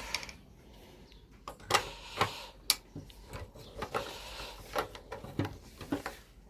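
Hand tools being picked up and put down: irregular metal clicks and clinks, a dozen or so spread unevenly, while someone searches for a socket.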